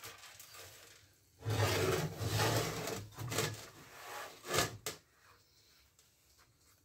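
Scraping and rubbing of the cut-open steel exhaust muffler shell being handled and shifted on a wooden workbench. The noise comes in a run of strokes lasting about three and a half seconds and ends with a couple of short, sharp scrapes.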